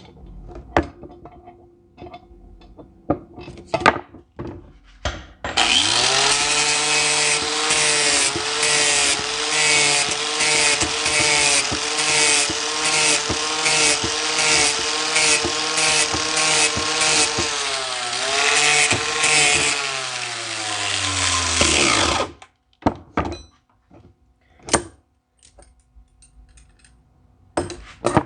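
Handheld electric power tool running under load for about seventeen seconds, speeding up at the start, dipping in pitch once, then winding down as it is switched off. Scattered metal knocks come before and after it.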